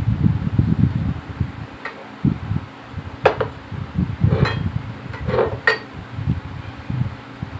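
Three or four light clinks and knocks of dishes on a table, spread over a couple of seconds in the middle, over a low, uneven rumble.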